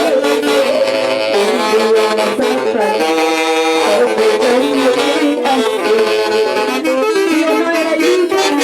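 An orchestra playing an instrumental passage with saxophones carrying the melody. Several notes are held together as a chord about three seconds in.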